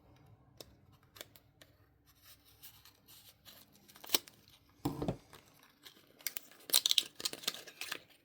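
Small clicks and scrapes of plastic as a cartridge of utility-knife razor blades and its packaging are opened and handled, with a soft thump about five seconds in and a quick run of scratchy rustling near the end.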